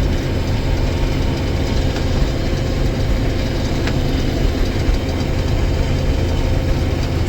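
Combine harvester running steadily while harvesting soybeans: a constant low engine drone with a faint steady whine above it.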